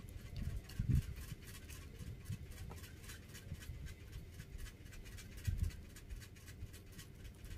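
A cat chewing cassava from a clear plastic tub, heard as a run of faint, quick, rhythmic clicks. There are soft low thumps about a second in and again past the five-second mark.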